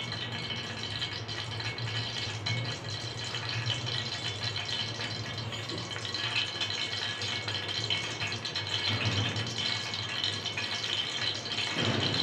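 A steady mechanical hum with a rattle in it, holding one level, with a low drone and a high whine that stay at a constant pitch.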